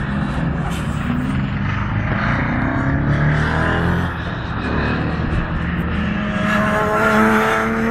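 Race car engines at full throttle passing close by: the white BMW E36 M3's straight-six with CNC-ported heads, revs climbing and dropping through gear changes, strongest and rising as it goes past near the end.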